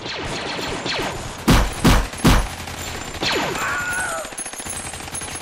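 Sound-effect battle gunfire: a steady rattle of rapid shots, with three heavy booms in quick succession about a second and a half in. Falling laser-blaster zaps cut through it near the start.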